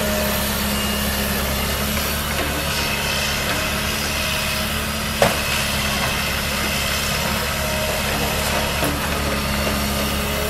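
Liebherr 934 demolition excavator's diesel engine running steadily as the machine swings and works its grab, with one sharp knock a little past halfway through.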